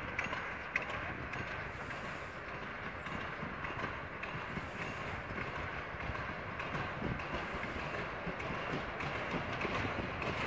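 Steam-hauled passenger train approaching at low speed: a steady rumble of the locomotive and carriages on the rails, growing slightly louder near the end.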